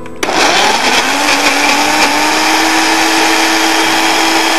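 Electric blender switched on with hummus ingredients inside (boiled chickpeas, beetroot, tahini, olive oil): the motor starts abruptly, its whine climbs over the first second, then runs steady as it purées the thick mixture.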